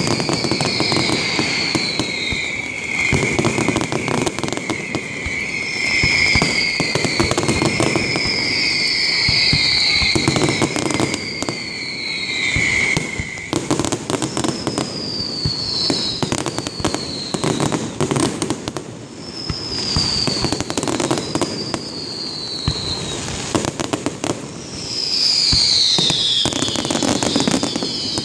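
Aerial fireworks display: a continuous run of bangs and crackling bursts, with repeated high whistles that fall in pitch over a second or so, and a held high whistle through the first half.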